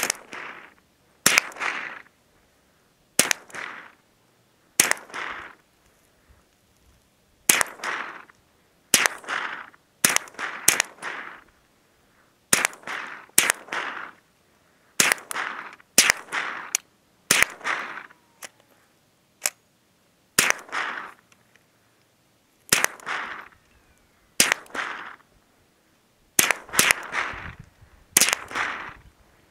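A string of about twenty rifle shots, one every second or two at an uneven pace, each with a short echoing tail.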